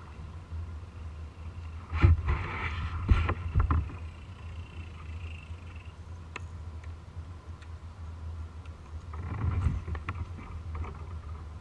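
Low steady wind rumble on the microphone and water against a plastic kayak hull, with a few knocks and clatters about two to four seconds in, the loudest near two seconds, and again around nine to ten seconds.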